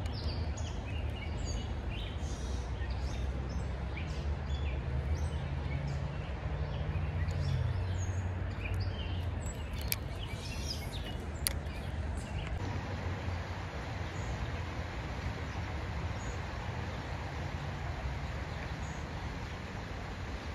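Steady rush of flowing creek water, with birds chirping now and then in the first half.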